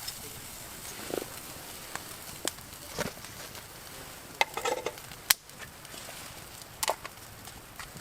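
Coffee beans roasting over a wood fire in a hand-held mesh roaster: scattered sharp pops and crackles over a soft steady hiss, with a short cluster of rattling clicks about halfway through.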